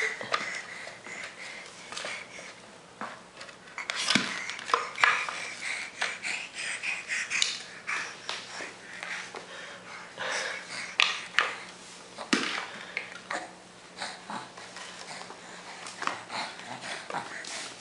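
A baby's breathing and small breathy vocal sounds, with scattered knocks and scrapes as a plastic bicycle helmet is handled and turned over.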